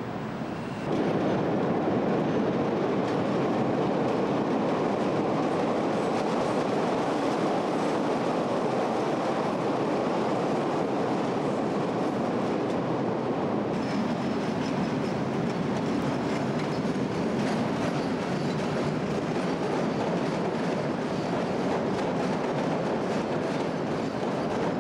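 Chicago 'L' electric rapid-transit train running on the elevated steel structure, a steady rumble with wheels clicking over rail joints, getting louder about a second in.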